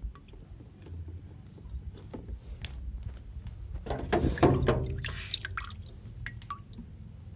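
Water dripping and sloshing in a shallow plastic tub as wet turtles are handled and lifted out, with small scattered clicks and a louder burst about four seconds in.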